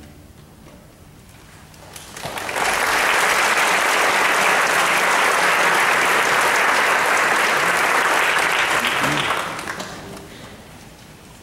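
Theatre audience applauding: clapping swells in about two seconds in, holds steady, then dies away near the end.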